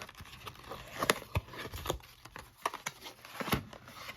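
Trading card packaging being handled: rustling and crinkling with a string of sharp clicks, the loudest about a second in and again near three and a half seconds in.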